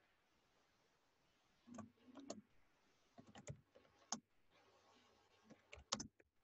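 Computer keyboard being typed on: a few faint, scattered keystrokes in small clusters, starting about two seconds in.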